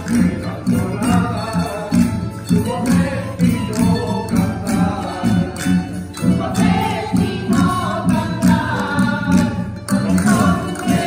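A Spanish rondalla of guitars, bandurrias and lutes strumming chords in a steady rhythm while a group of voices sings the melody.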